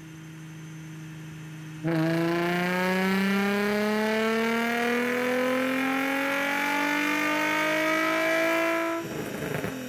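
Nissan 350Z's 3.5-litre V6, breathing through high-flow catalytic converters and a cat-back exhaust, making a full-throttle chassis-dyno pull. About two seconds in the engine goes to full throttle and rises steadily in pitch for about seven seconds. Near the end it lifts off and the revs fall away.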